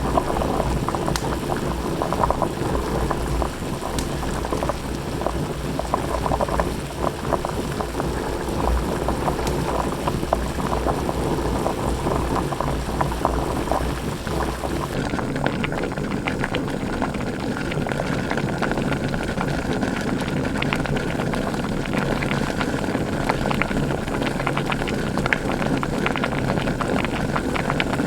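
A pot of water or stew (jjigae) boiling, with steady, dense bubbling. About halfway through it changes abruptly to a second boiling pot, with less low rumble and more fine crackling.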